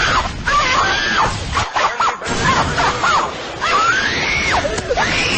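Screaming-kid meme sound effect: a child shrieks again and again in high, rising-and-falling screams over a loud noisy background.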